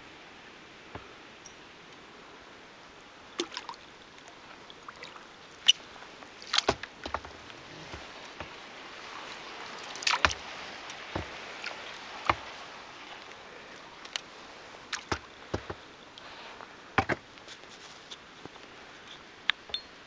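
Canoe paddling on calm water: the paddle dipping and dripping, with a scatter of sharp knocks and clicks, probably the paddle striking the hull, over a faint steady hiss.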